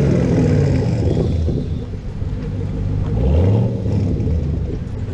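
Chevrolet Camaro's engine and exhaust rumbling as the car pulls away at low speed, with the revs rising briefly about three seconds in.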